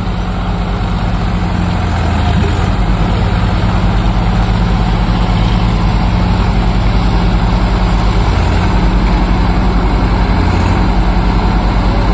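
Swaraj 744 FE 4WD tractor's three-cylinder diesel engine running hard under heavy load as the tractor strains to climb out of deep mud. The loudness builds over the first couple of seconds, then holds steady.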